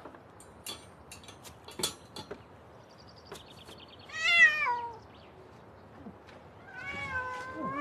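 A domestic cat meows, one loud call falling in pitch about halfway through, and begins another call near the end. Before the meow come a few light clicks and knocks as its small wooden cage is opened.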